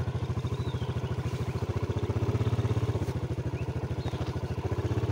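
Yamaha Jupiter MX motorcycle's single-cylinder four-stroke engine running with a steady, even pulse, a little louder about two seconds in, then easing off before picking up again near the end.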